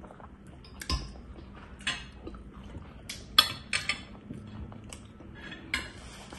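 Metal fork clinking and scraping on a ceramic dinner plate during a meal: several short, light clinks spread out, with a dull thump about a second in.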